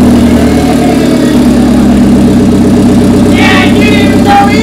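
Hyundai Genesis Coupe 2.0T's big-turbo four-cylinder engine idling steadily just after being started, with its exhaust not hooked up. A person's voice is heard briefly near the end.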